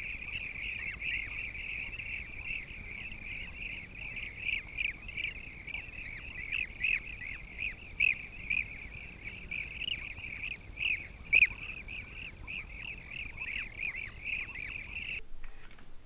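Blue-cheeked bee-eaters calling, many short overlapping call notes in a steady stream with a few louder ones standing out. The calling stops abruptly shortly before the end.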